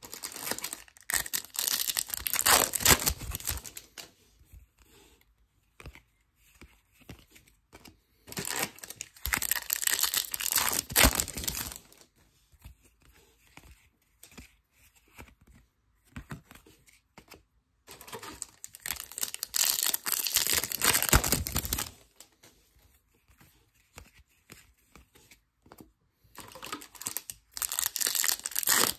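Trading card pack wrappers being torn open and crinkled, with the cards handled. The tearing and crinkling comes in four bursts of a few seconds each, and faint clicks of card handling fill the quieter stretches between them.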